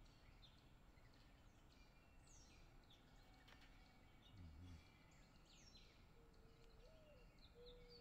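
Faint birdsong: many small songbirds giving high chirps and falling whistles. About three-quarters through, a low soft coo comes in that slides up and back down and then holds, typical of a mourning dove. A short low thud sounds about halfway.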